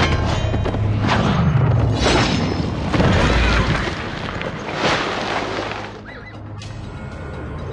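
Dramatic film score mixed with sword-fight sound effects: several swishing whooshes of a blade cutting the air, and a deep boom about three seconds in. The sound thins out near the end.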